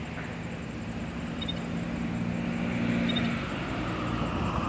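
A road vehicle in motion: a steady engine hum over road noise, getting slightly louder through the stretch.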